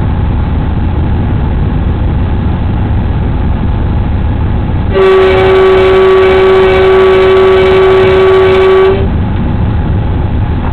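Locomotive horn sounding one long steady blast of about four seconds, starting about five seconds in. Under it is the steady rumble of the locomotive cab as the train runs at about 42 km/h.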